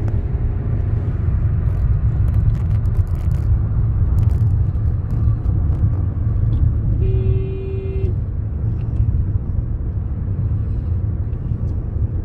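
Steady low rumble of a Maruti Suzuki car cruising on a highway, heard from inside the cabin. A few faint clicks come two to three seconds in, and a short steady tone sounds for about a second around seven seconds in.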